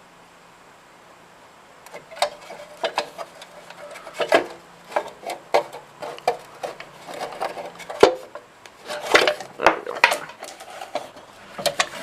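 Irregular knocks, clicks and scraping rattles of the Honda GX200 engine's cover being pulled and wiggled loose by hand, starting about two seconds in.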